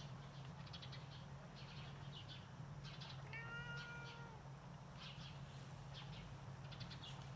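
A cat meows once, a level call of about a second that dips slightly at the end, over a steady low hum.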